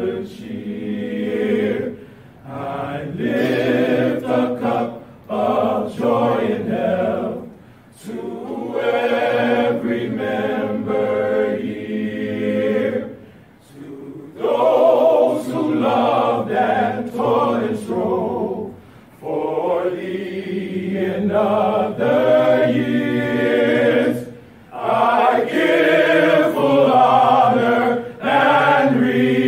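Men's choir singing a slow hymn a cappella, several voices together, in phrases of a few seconds broken by brief pauses for breath.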